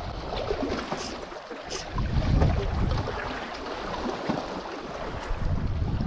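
Wind buffeting the microphone in gusts over the wash of choppy sea water against shore rocks, with two brief high ticks about a second in.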